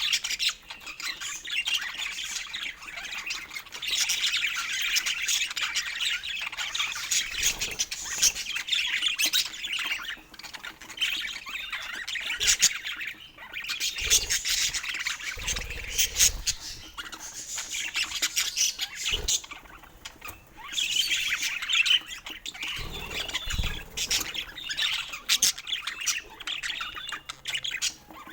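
Budgerigars chattering and warbling with rapid chirps, squawks and clicks, in bursts with brief lulls.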